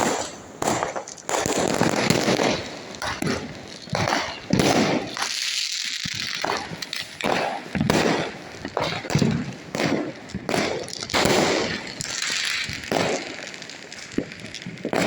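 Diwali fireworks and firecrackers going off in quick succession: many sharp bangs and crackles, with a hissing stretch about five seconds in.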